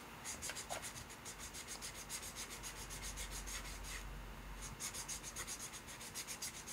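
Fine sanding sponge rubbing the edges of a dried, unfired silver clay pendant in quick back-and-forth strokes, about four or five a second, with a brief pause about four seconds in. The bone-dry clay is being smoothed before firing.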